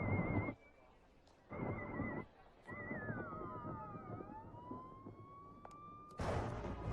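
Siren-like warbling tones from the soundtrack, in three short bursts, then sliding tones that fall and rise and a loud, dense burst near the end.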